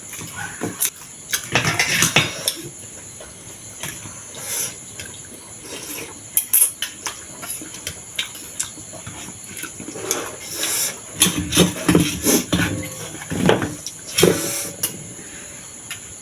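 Close-up eating sounds from momos and thukpa noodle soup: chewing and slurping, with scattered clicks of cutlery against the dishes, busier in the second half.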